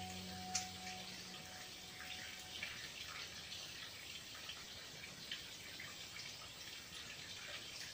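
Small fire of dry twigs crackling faintly, with scattered light pops and clicks as sticks are laid on it. The tail of a music note fades out in the first second.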